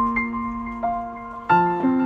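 Background music: soft piano notes.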